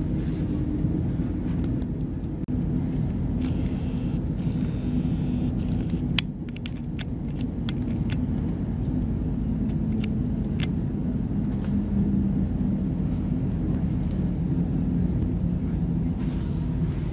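Cabin noise of a Class 222 Meridian diesel multiple unit under way: the steady low rumble and hum of its underfloor diesel engine and running gear, with a few sharp clicks about six to seven seconds in.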